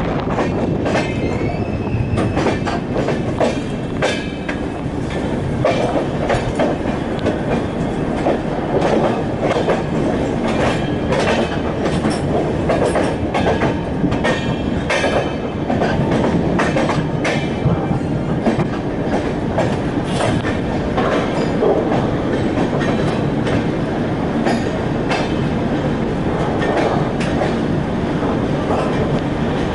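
Rajdhani Express passenger train running at speed, its wheels clattering over the rails with many irregular sharp knocks over a steady rumble.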